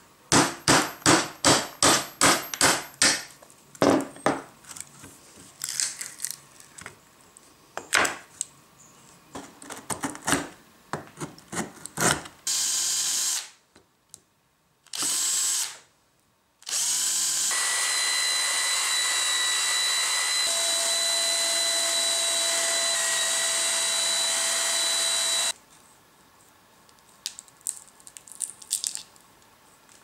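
Mallet blows on a wood chisel chopping into a pallet-wood block: about eleven quick strikes, then scattered knocks and scrapes. A cordless drill then runs in two short bursts and one steady run of about eight seconds, boring into the block.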